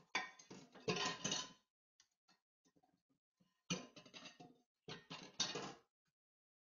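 Dishes and cutlery clattering in a stainless steel kitchen sink as a German Shepherd noses and paws through them. The clatter comes in three bursts: one of about a second and a half at the start, then two shorter ones about four and five seconds in.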